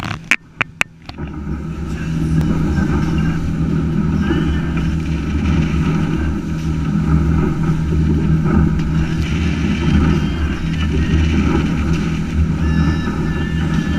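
Boat's engine running steadily with the boat underway, over the rush of wind and water. A few sharp knocks sound in the first second, and the engine swells slightly about a second and a half in.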